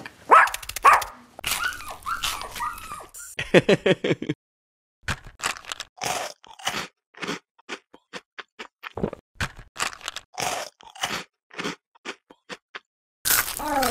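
ASMR mukbang eating sounds: a run of crisp crunching bites and chewing, roughly one to two crunches a second with short silent gaps, from about five seconds in. In the first four seconds, a few short pitched vocal sounds that glide in pitch.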